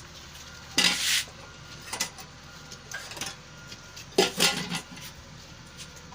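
Goat kids tugging at hung-up grass fodder, making short rustling, crackling bursts: a longer one about a second in, a brief one after that, and a cluster of several near the end.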